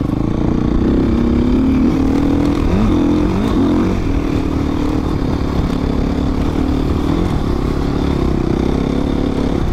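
Dirt bike engine running while being ridden, its revs rising and dipping a little between about two and four seconds in, then holding fairly steady.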